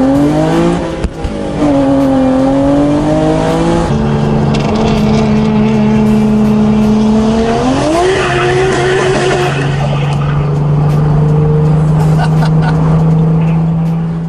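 Hyundai Genesis Coupe's 3.8 V6 with aftermarket headers pulling hard through the gears. The engine note climbs, then drops at shifts about one and four seconds in, holds steady, and climbs again near eight seconds.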